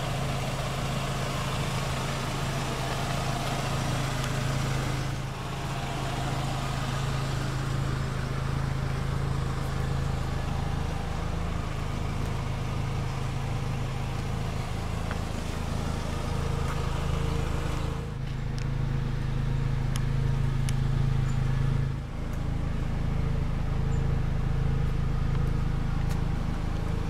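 2010 Kia Forte Koup SX's 2.4-litre inline-four engine idling steadily.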